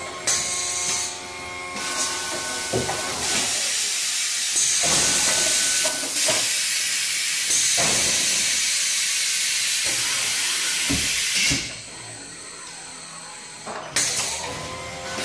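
ETI3000 print-and-apply label applicator working through a cycle. A motor whine rises at the start, then about ten seconds of loud, steady air hiss with scattered clicks follows, and the whine returns near the end.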